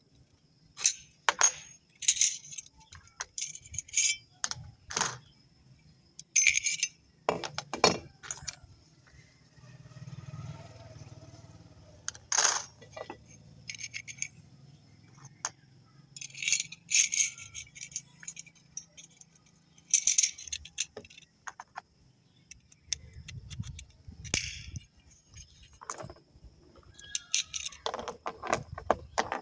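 Sharp metal clicks and clinks, coming irregularly, as brass cartridges are pressed into and pulled out of a short seven-round .30 bore pistol magazine and the magazine's steel body and spring are handled on a plastic mat.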